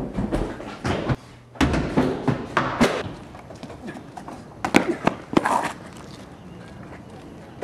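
Irregular thumps and knocks of feet running on stairs and floors, in several loud clusters, with a brief voice among them; after about six seconds they stop, leaving a steady low background.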